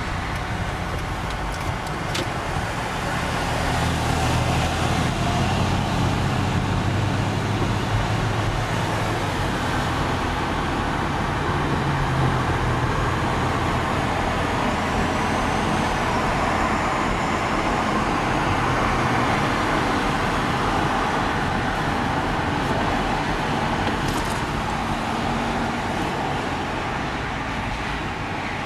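Steady road noise heard from inside a car travelling at highway speed: a constant rush of tyres on the road with a low engine hum.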